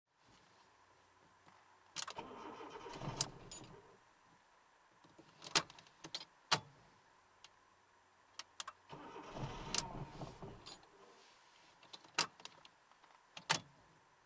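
Fiat Panda being cranked twice, each time the starter turning the engine over for a second or two, with sharp clicks in between; the engine is struggling to start, which the owner puts down to either dirty spark plugs or stale petrol.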